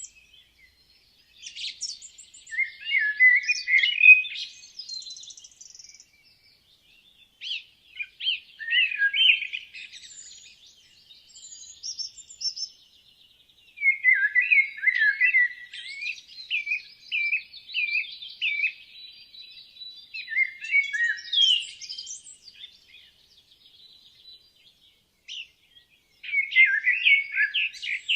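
Woodland songbirds singing: phrases of varied chirps and trills, each lasting a couple of seconds, follow one another with short pauses between.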